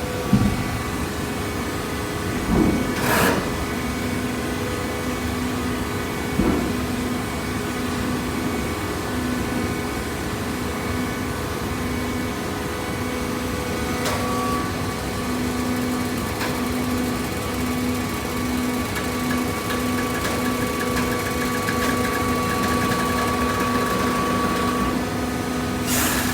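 Hydraulic baler running: a steady machine hum with a few sharp knocks and clunks.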